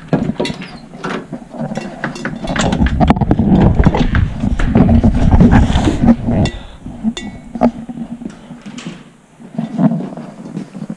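Handling noise on a handheld camera's microphone while walking: rubbing and thumps, loudest from about two to six and a half seconds in, with scattered clicks and knocks throughout.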